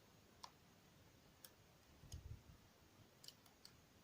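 Faint, scattered clicks of a dimple-lock pick and tension tool working the pins of a DOM ix10 KG euro cylinder, with a quick cluster of three after about three seconds and a soft low thump just after two seconds.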